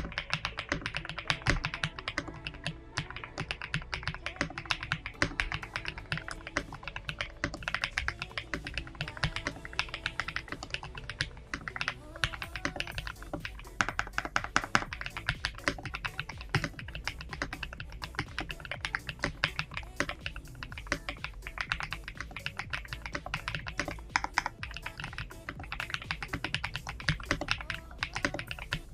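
Epomaker TH99 mechanical keyboard with Cloud Jade Axis linear switches being typed on steadily, a fast, dense run of soft, creamy keystrokes at several per second.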